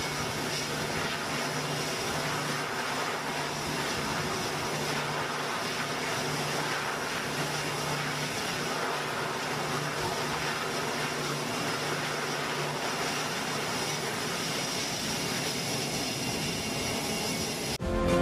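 Grumman E-2 Hawkeye's twin Allison T56 turboprop engines running steadily on a carrier catapult, a constant low hum under a wide propeller and exhaust hiss. Near the end it cuts off abruptly and music starts.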